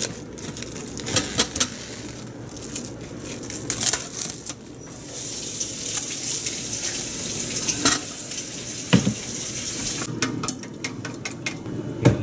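Plastic cling film pulled from its box and crinkled over a bowl, then a kitchen tap runs steadily for about five seconds. A couple of sharp knocks come near the end.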